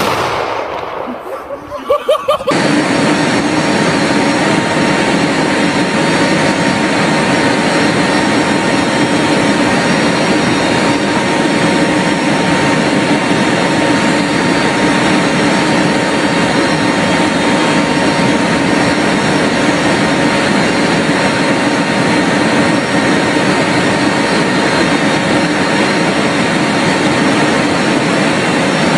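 A shoulder-fired rocket launcher goes off with a sudden blast that dies away over about two seconds. From about two and a half seconds in, the steady drone of a military transport aircraft's engines and rushing air fills the cargo hold through the open rear ramp, with several steady tones in it.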